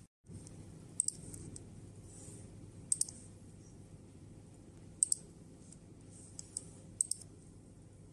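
Computer mouse clicking: sharp clicks, mostly in quick pairs, about every two seconds, with a couple of lighter clicks between, over a low steady hum.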